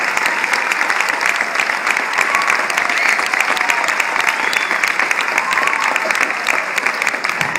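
Audience applauding: many hands clapping steadily and densely throughout.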